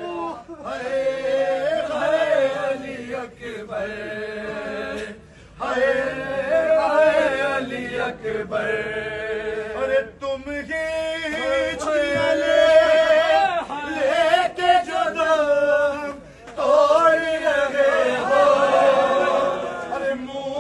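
Men's voices chanting a noha, an Urdu mourning lament, in long melodic phrases with short pauses about every five seconds.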